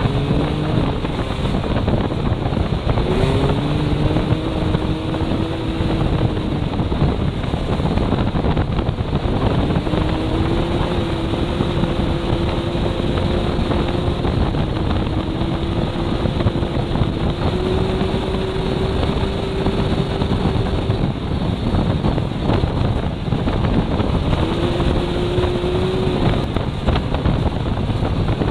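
Can-Am Maverick X3 side-by-side's three-cylinder engine running at speed, its pitch dropping and climbing back several times as the throttle is eased and reapplied, over steady wind and tyre noise.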